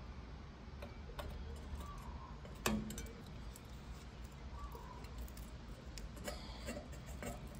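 Scattered light clicks and taps as the headlight's bulb-holder plug and wiring are handled inside the metal headlight shell, with one sharper knock about two and a half seconds in.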